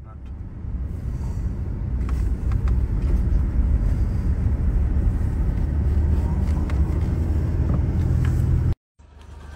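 Steady low rumble of a vehicle in motion, with a few faint clicks over it; it cuts off abruptly near the end.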